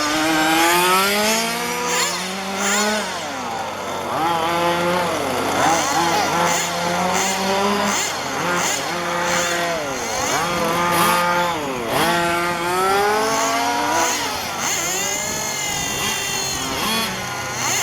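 Small two-stroke petrol engines of 1:5-scale RC cars running, several at once, each repeatedly revving up in a rising whine and dropping back.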